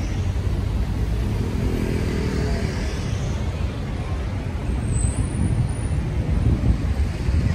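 City road traffic: a steady low rumble of cars passing on a busy avenue, with one vehicle's engine hum standing out briefly about two seconds in.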